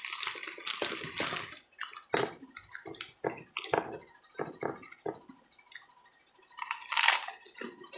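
Close-miked chewing of a pork chop: an irregular run of short, wet mouth clicks and smacks, with a louder burst about seven seconds in.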